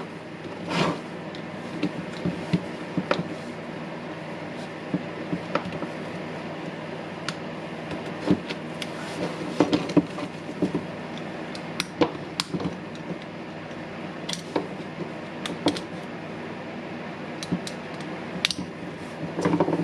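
Scattered small clicks, taps and knocks of a cordless rotary hammer's plastic housing and parts being handled as it is taken apart to replace its switch, over a steady low hum.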